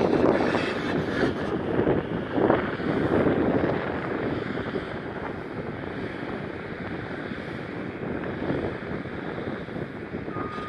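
Heavy machinery running on a demolition job, a steady engine rumble that surges a few times, with wind buffeting the microphone. A single short beep near the end.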